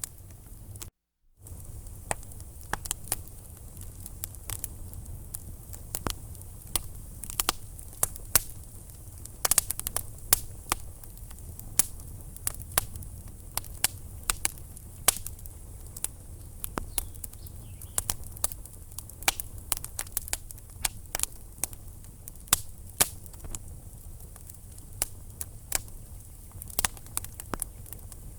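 Wood fire burning in a fireplace: logs crackling and popping in sharp, irregular snaps over a low steady rumble of the flames. There is a brief gap of silence about a second in.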